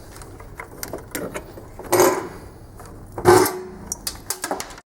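Metal parts and tools clattering as a ducted vacuum unit is worked on, with scattered clicks and two louder clanks, the second ringing briefly. The sound cuts off suddenly near the end.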